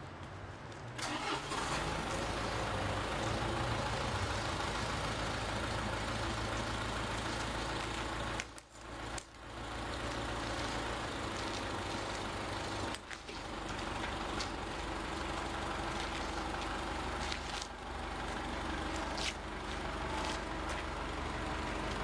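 A vehicle engine starts about a second in and then runs steadily with a low hum, with a few faint clicks over it; the sound dips out briefly twice in the middle.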